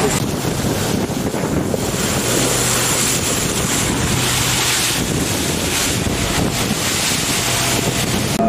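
Water rushing and splashing along the hull of a motor boat under way, mixed with wind buffeting the microphone and a steady low engine hum underneath.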